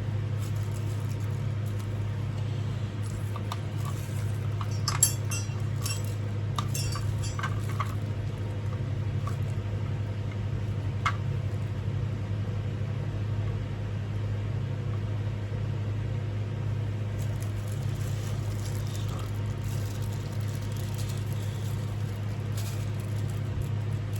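Light metallic clinks and clicks of ceiling-fan parts being handled during blade assembly: a cluster of clinks, one sharper click about eleven seconds in, and scattered faint clicks later on. A steady low hum runs underneath.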